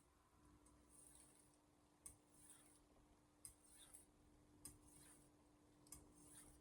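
Faint, rhythmic strokes of a steel knife blade drawn across a Shapton Glass whetstone: a short scraping hiss about every second and a half, each with a small click.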